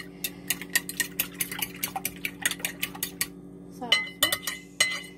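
Metal fork beating a runny egg-and-milk quiche filling in a glass pie dish: quick, regular clicks of metal against glass, several a second. Near the end come a few ringing clinks of the fork on the glass.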